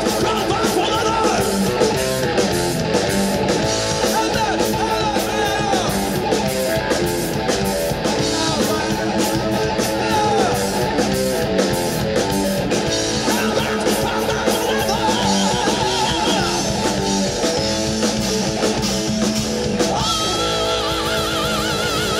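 Live heavy metal band playing loudly: electric guitars, bass guitar and drum kit, with a singer's vocal. Near the end a held note wavers with wide vibrato.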